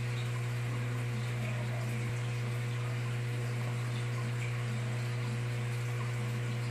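Aquarium pump humming steadily, a deep mains hum over a faint hiss of moving water.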